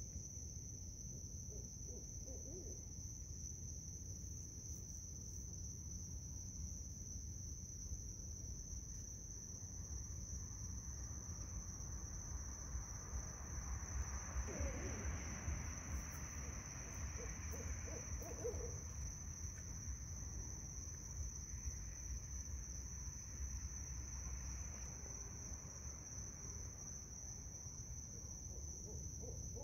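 Barred owls hooting in the distance: faint hoots come in a few spaced groups, with birds calling back and forth. A steady high-pitched drone runs underneath.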